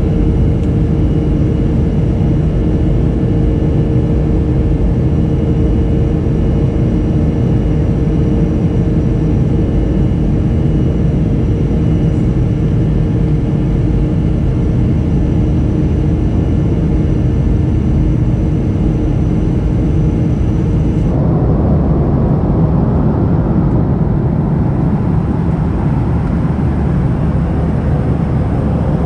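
Steady engine and airflow noise inside the cabin of a Boeing 737-300 climbing out, its CFM56-3 turbofans giving a constant roar with a steady hum over it. About two-thirds of the way through, the sound changes abruptly to a duller cabin rumble without the hum tones.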